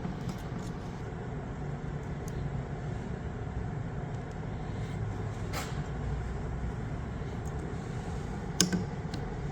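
A few light metallic clicks from a snap ring being fitted with snap ring pliers onto a cable cutter blade's pivot hinge: one about halfway through and two close together near the end. Under them runs a steady low hum.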